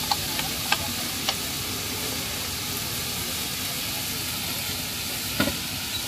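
Noodles and vegetables sizzling steadily on a hot wok, with a few sharp clicks of a metal utensil against the pan, the loudest near the end.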